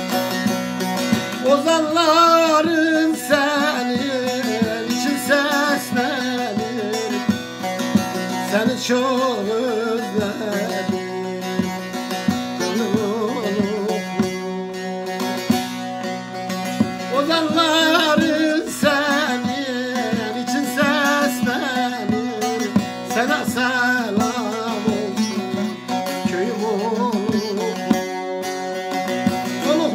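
Turkish folk music on a Yaygın Saz long-necked bağlama, strummed in a steady rhythm over a ringing drone, with a wavering melody line.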